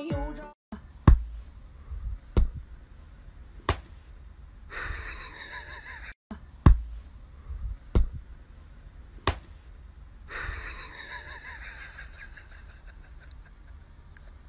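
Six sharp taps in two groups of three, about one and a half seconds apart, with stretches of soft rustling between them.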